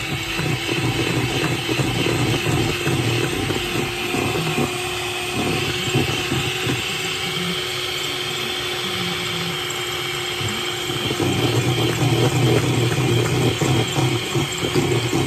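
Electric hand mixer running steadily, its twin beaters churning batter in a plastic bowl. The motor whine holds one pitch, and the rattle of the beaters in the bowl grows louder in the last few seconds.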